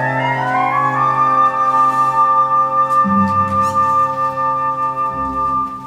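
Instrumental music ending on a long held high note over a few changing bass notes, fading out at the very end.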